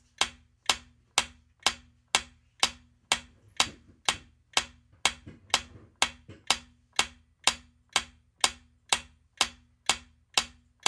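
Quiz countdown-timer sound effect: a clock-like tick repeating evenly about twice a second.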